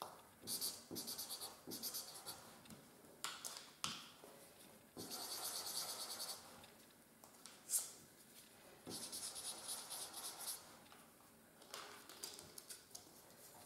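Markers scratching on paper as a small flower is drawn: short separate strokes, two longer stretches of fast back-and-forth scribbling, and a sharper tap just past halfway.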